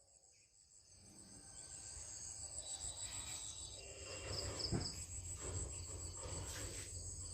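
Insects, likely crickets, chirping steadily in a high pitch, over a low rumble. There is a brief thump about halfway through.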